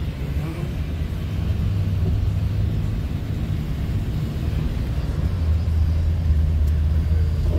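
Steady low rumble of a vehicle driving on a wet road, heard from inside the cab, with a light hiss of tyres on the water; the rumble grows louder about five seconds in.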